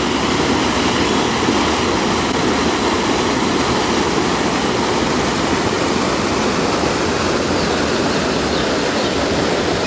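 Small waterfall: clear spring water rushing steadily over a low cascade into a river, a loud, even sound of falling water.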